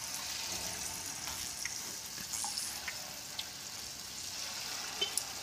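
Batter fritters (pakoras) deep-frying in hot oil in an iron kadhai: a steady sizzle, with a few faint ticks as a wooden spatula stirs them.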